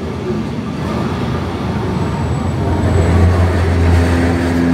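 Lisbon tram running on its rails, heard from aboard the car: a steady rumble with a low hum that grows louder over the second half.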